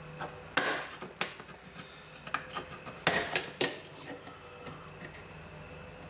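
Plastic pull-handle trim panel on a Chevy Silverado door being pried off with a flat-blade screwdriver: a series of sharp plastic clicks and knocks, about six or seven scattered over several seconds.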